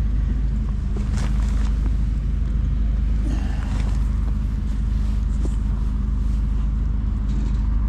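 An engine running steadily at an even speed, a low hum that holds its pitch throughout.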